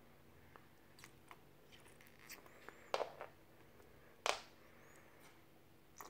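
Small plastic clicks and taps from a plastic toy doll and its tiny bottle being handled, with two louder brief scuffs about three and four seconds in.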